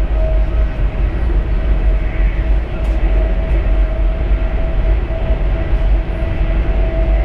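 Chinese high-speed train running at speed, heard from inside the carriage: a steady, loud rumble with a constant whine running through it.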